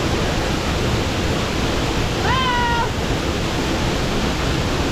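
Waterfall's steady rush of falling water. A single short high-pitched cry, rising and then holding, sounds over it about two seconds in.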